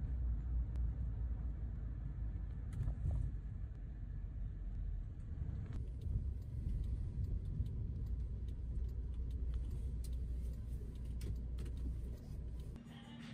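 Low steady rumble of a moving vehicle's engine and road noise, heard from inside the cabin, with a few light clicks; the rumble drops away shortly before the end.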